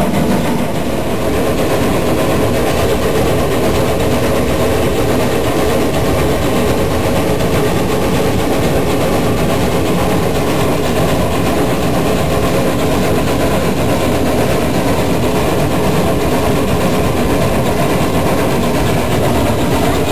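Metre-gauge steam locomotive 99 6101 running with its train: a steady, loud rumble of the moving train.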